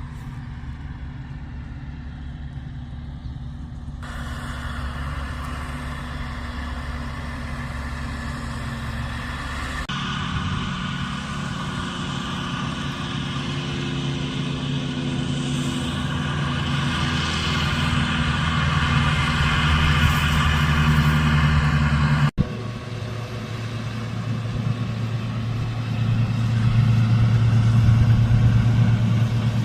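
Heavy diesel farm machinery running steadily, a truck or harvester engine droning with rumble. The sound jumps three times as different clips are cut together.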